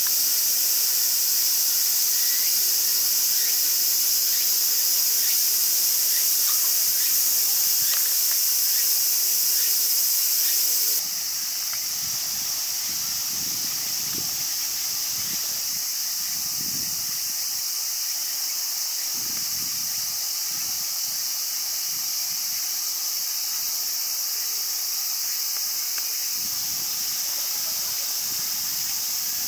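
Steady high-pitched buzzing of a cicada chorus, dropping in level about eleven seconds in. A few faint short chirps sound in the first part, and low rumbles come after the drop.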